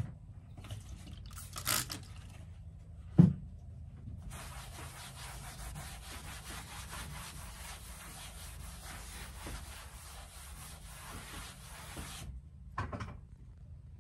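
A cloth rubbing back and forth over a tabletop as it is wiped clean, running steadily from about four seconds in to about twelve seconds. Before that there are a few short wipes and one sharp knock about three seconds in.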